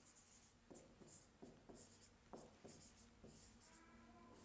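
Faint scratching and tapping of a pen on an interactive smart-board screen as a word is handwritten, in a string of short strokes.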